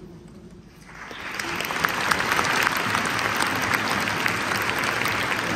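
Audience applauding, starting about a second in and swelling into steady clapping.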